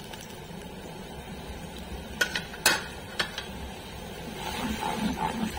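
Oil, margarine and ghee sizzling and bubbling in a non-stick pot with whole spices. A metal spoon stirs it and clinks against the pot about four times in the middle.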